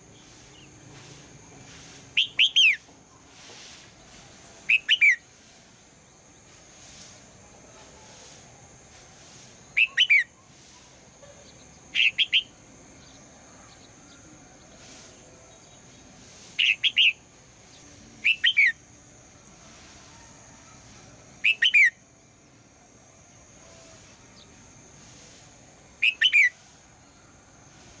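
Red-whiskered bulbul calling: eight short, loud phrases, each a quick run of two or three clear notes, spaced irregularly a few seconds apart.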